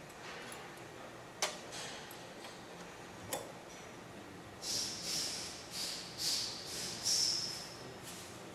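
Two sharp metal clicks, then a run of about six short, high-pitched metallic scrapes, roughly two a second, from a small hand tool worked against the metal fittings at a machine spindle's nose.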